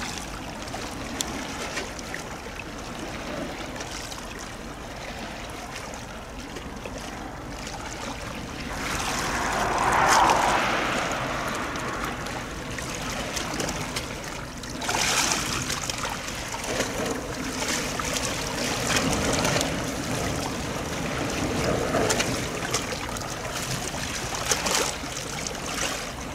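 Water washing and splashing along the shore, a steady rush that swells up about ten seconds in and again around fifteen seconds.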